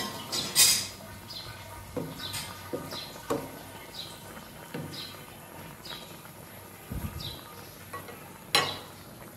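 Pan lid and cooking spoon clattering, knocking and scraping in a karahi as simmering flat beans and green tomatoes are stirred, the sharpest clatters just under a second in and near the end. A short high chirp repeats about once a second behind it.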